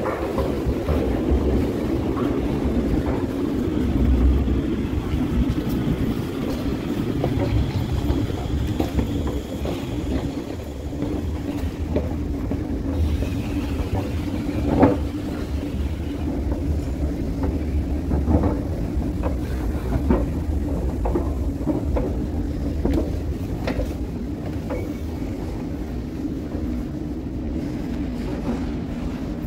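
Underground rail station ambience: a steady low rumble and hum from station machinery such as running escalators, with scattered clicks and knocks. One sharp knock about halfway through is the loudest.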